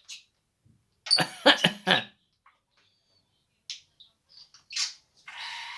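A short run of coughs about a second in, which the title presents as the budgerigar coughing. It is followed by a few brief high chirps and a scratchy budgie chatter near the end.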